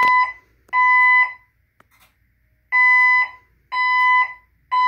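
Fire alarm system sounding the temporal-three evacuation tone between voice messages in its second, evacuation stage. It plays short, even, high beeps: two beeps, a pause of about a second and a half, then a fresh group of three.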